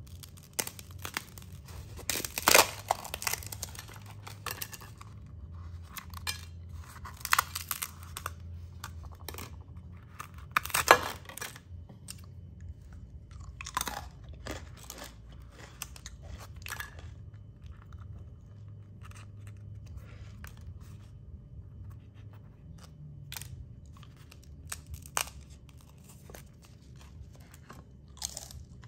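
Crisp crust of puffed pita breads crunching and crackling as hands tear them open, in irregular bursts of cracks. The sharpest cracks come about two and a half seconds in and about eleven seconds in.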